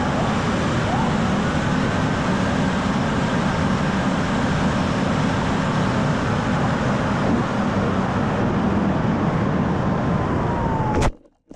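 Wind rushing over the onboard camera of an AR Wing flying wing gliding with its motor dead after an ESC failure, with a faint whistle that falls in pitch near the end. About eleven seconds in comes a sharp thud as the wing lands in the grass, and the rushing stops at once.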